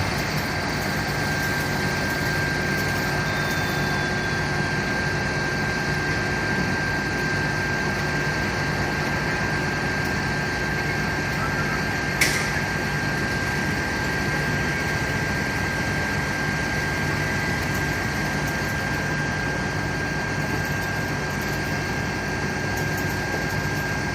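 A vehicle engine idling steadily, with a constant high whine running over it. A single sharp click comes about halfway through.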